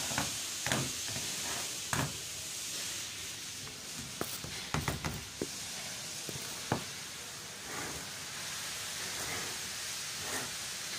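Handling noise from a phone camera being picked up, moved and set down: irregular knocks, bumps and rubbing, with a cluster of knocks about five seconds in and a sharp knock shortly after, over a steady hiss.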